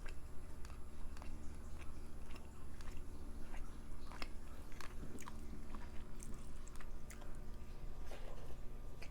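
A person chewing chicken curry close to the microphone, with many irregular wet mouth clicks and smacks.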